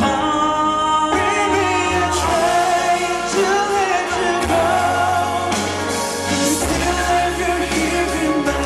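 Live pop ballad: a male voice singing long, wavering held notes without clear words, over band accompaniment with a sustained bass line.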